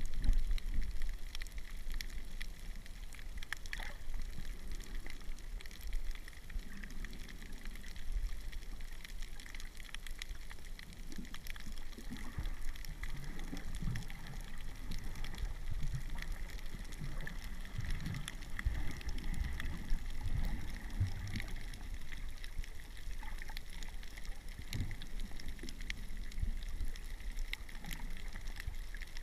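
Underwater ambience: muffled sloshing and rumbling of water moving around a submerged camera, swelling unevenly, with faint scattered clicks.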